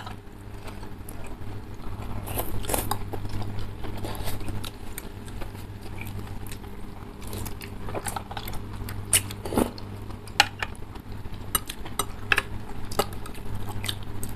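Close-up eating of instant noodle soup: chewing and noodles slurped, with metal forks and spoons clicking against ceramic bowls at irregular moments. A steady low hum runs underneath.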